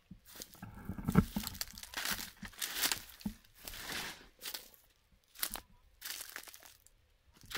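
Irregular crunching and rustling of dry leaves and cashew branches as someone moves on foot through the trees, in short uneven bursts with brief pauses.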